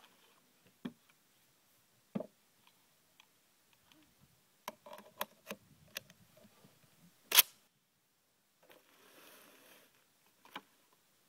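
A series of light metallic clicks and knocks from a MAS 1944 semi-automatic rifle being handled, with one much louder sharp clack about seven seconds in and a short soft rustle a second or so later.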